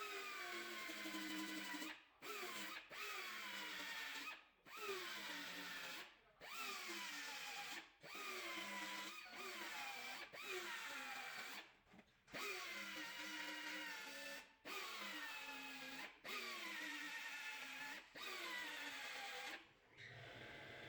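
A power drill run in about ten short bursts, with brief pauses between them. Its pitch drops at the start of each burst and then holds steady.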